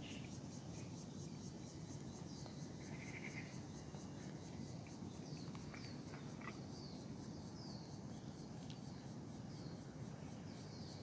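Outdoor ambience: insects chirring in a steady rapid pulse, with several short falling bird chirps in the middle and again near the end, over a low steady rumble.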